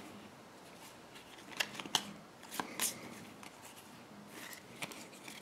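Topps Star Wars Force Attax trading cards being handled and slid apart into a fan, the card edges rubbing, with a few crisp clicks about two to three seconds in.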